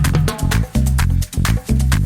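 Upbeat electronic background music with a steady dance beat and bass line.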